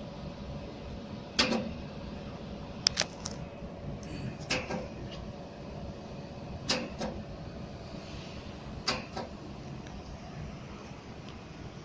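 Jewelry laser welding machine firing single pulses onto a silver necklace, each a sharp snap, about five over a few seconds, some in quick pairs, over the machine's steady hum.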